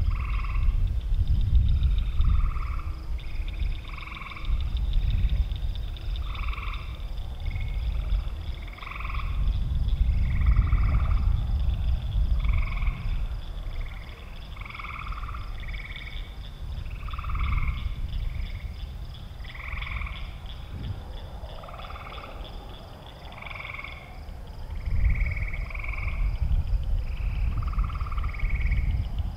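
A chorus of frogs calling: short two-pitched calls repeating about once a second, several overlapping, over a low rumble that swells and fades.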